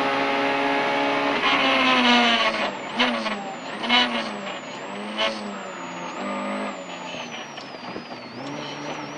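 Peugeot 106 Rallye's 1.3-litre four-cylinder engine held flat out at high revs, then braking for a corner: the revs fall and jump back up three times as it shifts down through the gears, each shift with a short sharp bang, before settling at a lower, steadier note.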